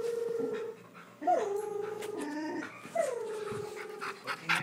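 A dog making three long, Chewbacca-like moaning calls. Each call slides down in pitch and then holds steady for about a second, with short breaks between them.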